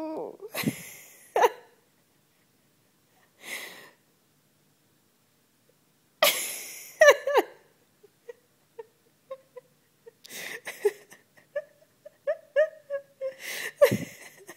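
A person's stifled laughter: wheezy, breathy bursts of laughing, then a run of short, breathy giggles near the end.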